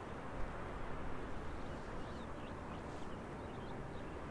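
Open-air ambience: a steady low rush with faint, scattered high chirps of small birds.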